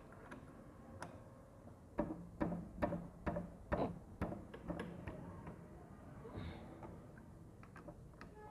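A run of sharp clicks and taps, roughly two to three a second for about three seconds, then a few scattered ones: hand tools working on a motorcycle engine being dismantled.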